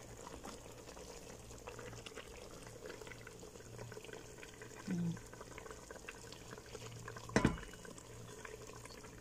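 Chicken gulai curry sauce simmering in a cooker pot: faint bubbling and crackling over a steady low hum, while a whole chicken is lifted out of the sauce with a fork and spoon. A single sharp knock of a utensil on the pot comes about seven seconds in.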